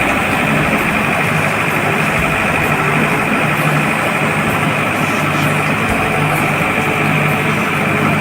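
Ooty toy train (Nilgiri Mountain Railway) locomotive running: a loud, steady engine noise with a low hum that swells and fades every second or so.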